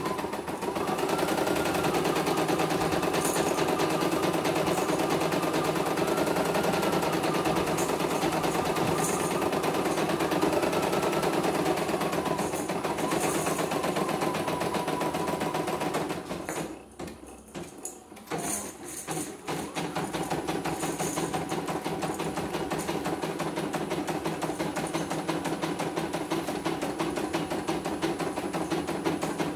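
CNY E900 embroidery machine stitching a design: a fast, even rattle of needle strokes. It stops briefly a little past halfway through, then runs on at the same pace.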